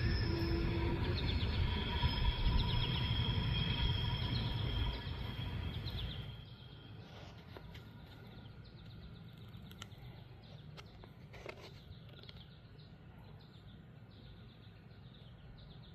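Freight train rumbling past with a few thin, steady high squeals over the low rumble; the sound fades away about six seconds in. Quiet outdoor background follows, with short high bird chirps.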